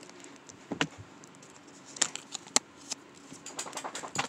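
Plastic bag of fidget toys crinkling and clicking as it is handled: a few separate sharp crackles, then a quicker cluster of them near the end.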